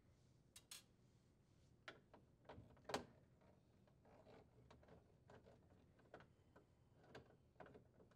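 Faint clicks and light taps of a 1/4-inch nut driver working the screws of a plastic refrigerator cover panel as they are unthreaded, with one sharper click about three seconds in.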